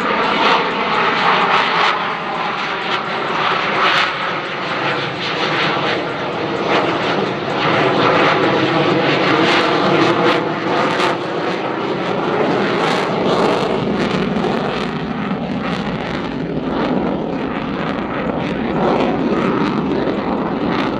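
CF-18 Hornet's twin General Electric F404 turbofan engines at high power as the jet flies its display, a loud, continuous jet noise that cuts in suddenly at the start. It is shot through with crackling, thickest in the middle, and the afterburners are lit near the end.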